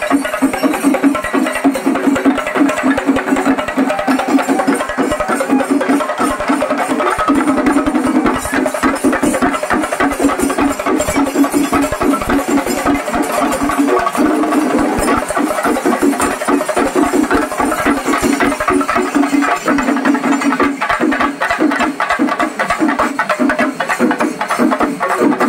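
Kerala chenda drums played by a percussion troupe in a fast, dense rhythm that keeps going at a steady loud level, stroke after stroke.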